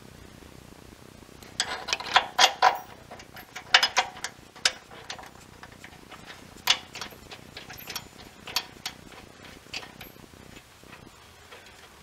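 Irregular light metallic clicks and clinks, some in quick clusters, starting about a second and a half in, as a steel bracket is fitted over a tow-hook bolt and the bolt is threaded in by hand.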